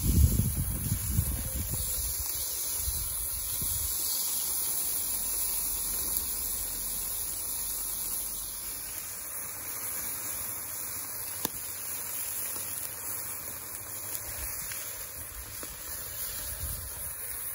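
Chicken and pork sizzling on a charcoal grill: a steady, even hiss, with a low rumble in the first few seconds.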